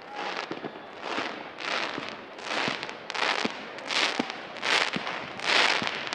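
Fireworks display: rockets going up one after another, about eight in a row, each a swelling rush of hiss lasting about half a second, with short sharp pops from bursts between them.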